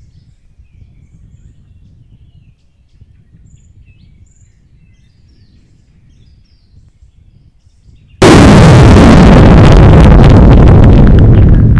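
Faint low outdoor rumble with a few bird chirps, then about eight seconds in a sudden, very loud explosion-like crash for a giant meatball slamming down, held at full loudness and starting to fade near the end.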